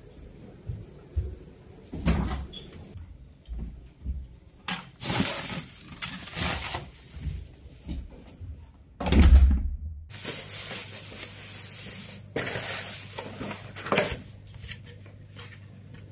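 Household objects being handled: a string of rustles, knocks and thumps, with one heavier thump about nine seconds in. A low steady hum comes in just after it.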